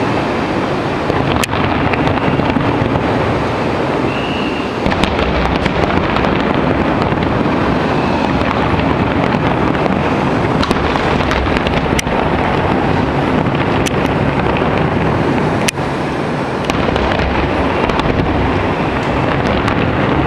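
Fireworks going off: scattered sharp bangs and cracks over a steady rush of noise, likely wind on the microphone.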